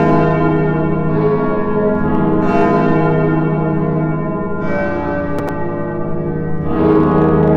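Several church bells ringing together. New strokes land every one to two and a half seconds over a continuous, overlapping hum of ringing tones.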